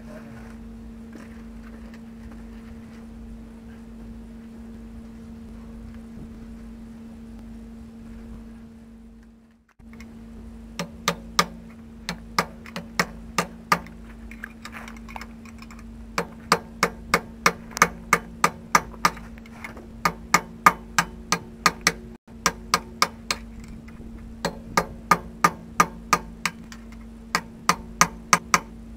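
A hand hammer striking a steel punch in quick runs of sharp metallic blows, about three a second, beginning about eleven seconds in. Before that only a steady low hum.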